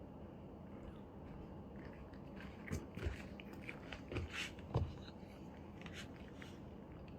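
A cat chewing food, with a run of sharp crunches in the middle, the loudest near the end of the run.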